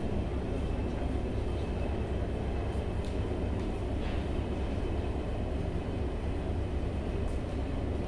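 A steady low rumbling background noise, with a few faint short taps of chalk on a blackboard.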